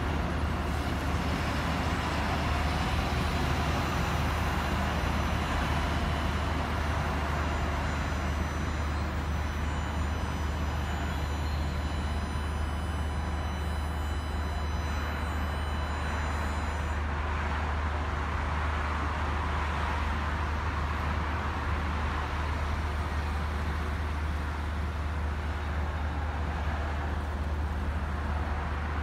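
Steady city road traffic: a continuous low rumble and hiss of cars.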